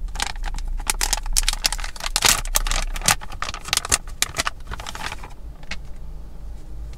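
Mask vending machine clicking and rattling in a quick, uneven run of clicks that stops about five seconds in, with one last click after it. A steady low hum runs underneath.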